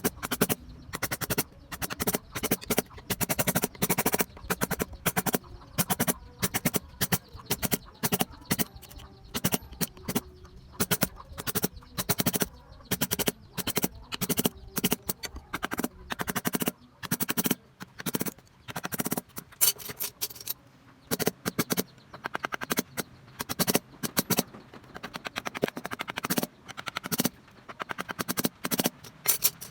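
Wood-carving chisel struck with a mallet, rapid irregular taps several a second with short pauses between runs.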